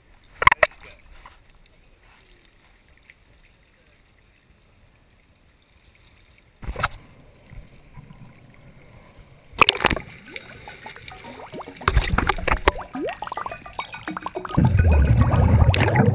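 Seawater splashing against a camera held at the surface, with sharp splashes about half a second in, near seven seconds and near ten seconds. Then the sound turns to underwater bubbling and churning from scuba divers' regulator exhaust, louder and deeper over the last couple of seconds.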